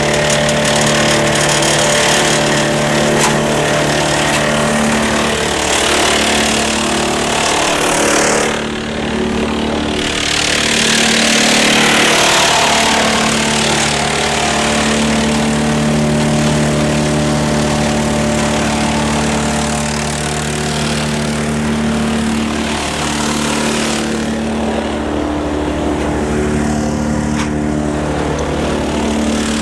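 A tractor engine runs steadily, driving a Woodland Mills TF810 PRO PTO wood chipper with twin flywheels, with chipping noise over it. The harsh chipping noise swells for a few seconds about a third of the way in and eases off near the end.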